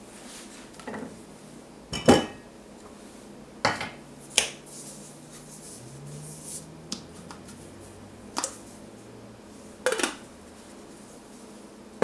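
Handling clatter: a heavy steel block and plywood board being lifted off a stainless-steel-lined wooden travel mug and set down on a plywood bench, then the mug handled and set down. Several separate sharp knocks and clanks, the loudest about two seconds in, another as the mug is set down at the end.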